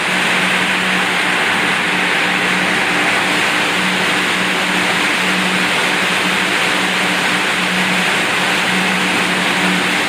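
Machine running steadily: an even whirring noise over a steady low hum that wavers slightly in strength.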